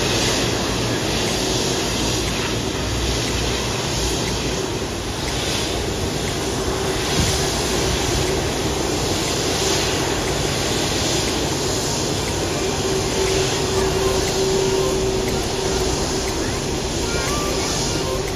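Lion Air Airbus A330 on the move along the taxiway: a continuous rumble and hiss with a steady hum that grows stronger about two-thirds of the way through.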